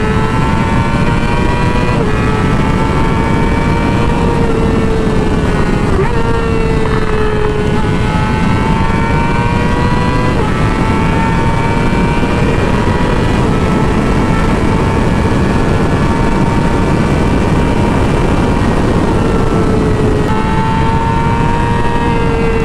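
Yamaha R6's 599 cc inline-four engine running at high revs under way: a steady high-pitched whine that drifts slightly up and down every few seconds, over heavy wind rush on the microphone.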